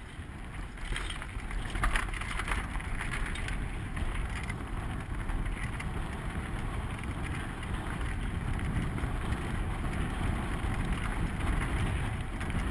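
Downhill mountain bike ride heard from a helmet camera: steady wind rumble on the microphone over tyres on a dirt trail and the bike rattling over rough ground, with a cluster of sharper rattles and knocks about one to three seconds in.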